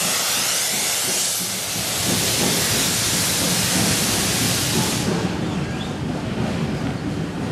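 Steam from a pair of mainline steam locomotives, LMS Black Five 45305 and Britannia 70013, hissing loudly as the train moves off, cutting off sharply about five seconds in. Underneath is the low rumble of the coaches rolling past.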